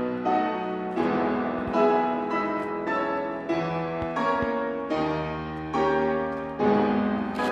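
Background music led by piano chords, changing about once a second.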